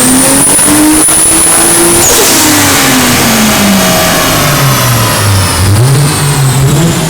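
Turbocharged car engine pulling hard at high revs with a high whine climbing alongside it; about two seconds in the throttle is lifted and the revs fall steadily away, then hover unevenly at low speed.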